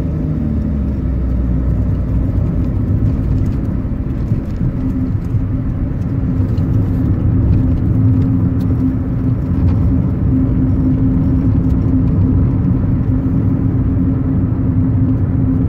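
Car driving at a steady pace, heard from inside the cabin: a steady engine hum at one pitch over a low rumble of tyres on the road.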